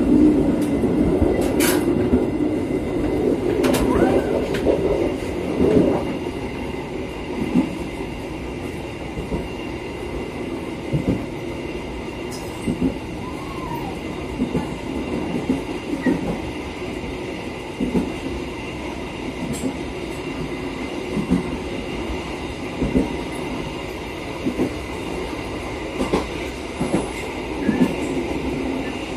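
Passenger train running along the track, heard from the rear of the last coach: a steady rumble with a regular clack of the wheels over rail joints roughly every one and a half to two seconds, louder in the first few seconds.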